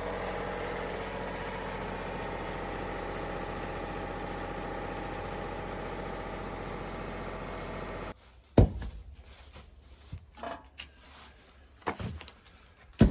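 An engine running steadily for about eight seconds, then cutting off abruptly. After that come a few sharp knocks.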